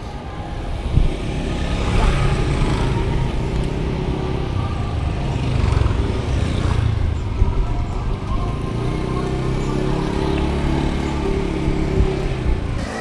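Road traffic noise heard from a moving bicycle: motor vehicles running past over a steady low rumble.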